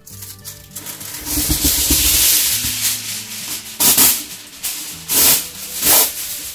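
Aluminum foil being pulled off a Reynolds Wrap roll: a long crinkling rustle that builds over the first couple of seconds, then three sharp, loud crinkles of the foil sheet about four, five and six seconds in.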